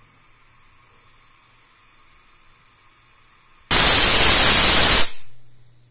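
Hawkins pressure cooker whistling: steam jets out past the pressure regulator in a loud hiss about three and a half seconds in, lasting about a second and a half before dying away. This single whistle signals that full pressure has been reached.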